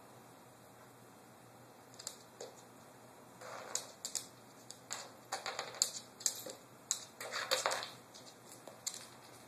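A dog's claws clicking and scrabbling on a hardwood floor in quick, irregular bursts as it darts and turns. The clicks start about two seconds in and thin out near the end.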